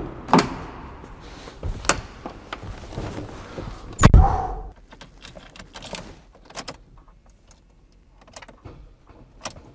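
Getting into a Ford Ranger pickup's cab: rustling and knocks, then the driver's door thumps shut about four seconds in. After that come only faint clicks and key jingles at the ignition, and the engine does not crank, because the battery is flat.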